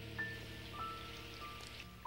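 Soft background music: a slow melody of single high notes stepping over held lower chords, with a faint hiss underneath.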